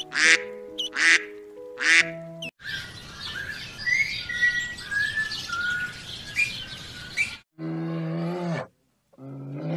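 A mallard duck quacking several times over steady musical notes, then a bird chirping a run of short calls for about five seconds, then two low calls from a brown bear near the end.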